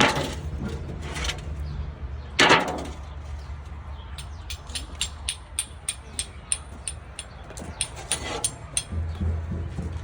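A knock, then a run of quick light clicks and scrapes, about two or three a second, from a utensil working dirt in a toy pot, over a low steady rumble.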